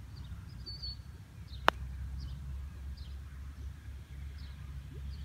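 A putter striking a urethane-covered Titleist AVX golf ball once, about a second and a half in: a single short, muted click. Faint bird chirps and a low rumble of wind underneath.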